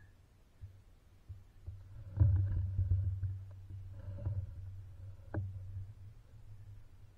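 Low rumble with a few sharp knocks, the sound of the camera being handled and shifted.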